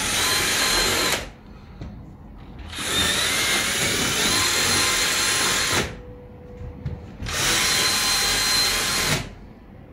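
Electric drill boring holes in a wall for an AC unit's mounting stand, in three runs with short pauses: the first stops about a second in, a longer run of about three seconds follows, and a shorter one comes near the end, each with a steady motor whine over the grinding of the bit.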